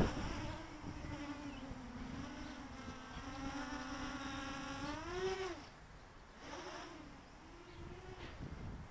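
Micro 180-size quadcopter's brushless motors and propellers buzzing in flight. The pitch holds steady, then rises and falls in a quick throttle punch about five seconds in. After that the buzz is fainter, with smaller swells up and down.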